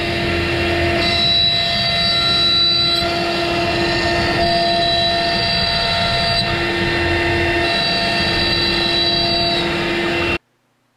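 Avid CNC router spindle running and cutting a profile in a pine board, a steady machine noise with whining tones that step up and down every second or two. It cuts off suddenly near the end.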